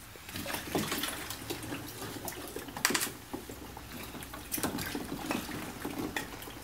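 Ice water sloshing and splashing in a chest freezer as a person climbs in and lowers his body into it, in irregular bursts, with a louder splash about three seconds in.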